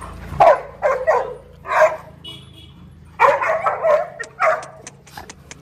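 Dogs barking in short bursts while playing and play-fighting in a group. A few single barks come first, then a quicker cluster of barks about three seconds in.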